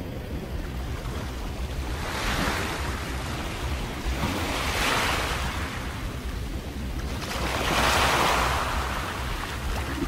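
Small waves washing against an ice-crusted rocky shore, coming in swells every two to three seconds, the loudest about eight seconds in, over a steady low rumble of wind on the microphone.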